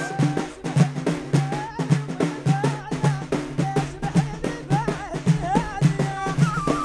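Algerian folk music of gasba reed flutes and bendir frame drums: the flutes play a wavering melody full of slides and turns, over the drums beaten in a quick, steady rhythm.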